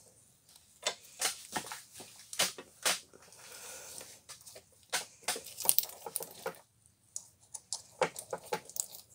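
A small screwdriver handled against the steel jaws of a bench vise: irregular sharp clicks and knocks of its wooden handle and metal shaft on the vise, with a stretch of scraping a few seconds in.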